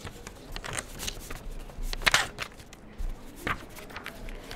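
Paper rustling and crinkling close to tabletop microphones as sheets are handled, a few short crisp rustles.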